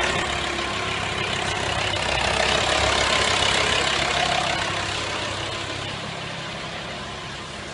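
Volkswagen Transporter T5 engine idling steadily, the sound fading gradually over the last few seconds. The power steering pump no longer hums: the sign that the air has been bled out of the freshly rebuilt steering rack's system.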